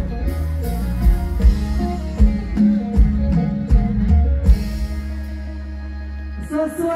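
Live mor lam band music: drum kit and bass playing a steady beat with keyboard and guitar, settling on one held chord about five seconds in.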